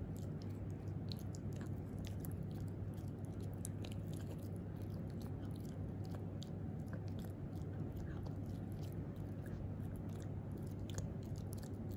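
Italian Greyhound puppy chewing a breath-freshening dog chew, a steady run of small irregular crunches and wet mouth clicks, over a steady low hum.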